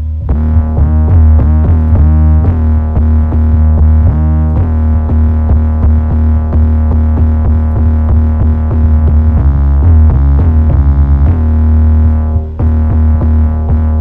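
A distorted synthesized 808 bass plays loud, sustained low notes under a programmed electronic beat. The 808 is built from Logic Pro's stock synths and a saturation and compression plugin chain.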